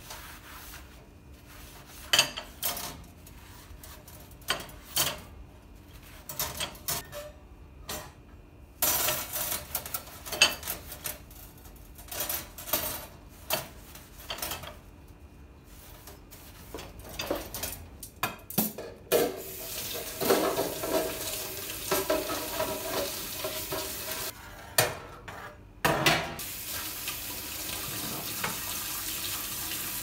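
Dishes, pots and cutlery clinking and clattering as they are handled, in scattered knocks. About two thirds of the way through, a steady hissing noise sets in and carries on under a few more knocks.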